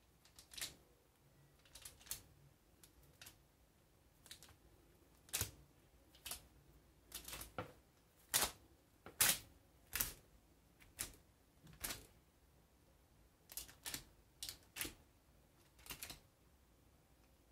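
A chef's knife scoring proofed brioche rolls on a parchment-lined metal baking tray: faint, irregular light clicks and taps, one or two a second.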